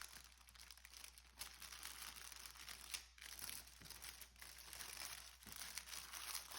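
Faint crinkling and rustling of packaging being handled, with scattered small clicks and a slightly louder one about three seconds in.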